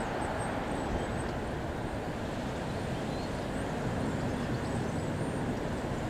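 Steady low outdoor background rumble, with faint high bird chirps now and then.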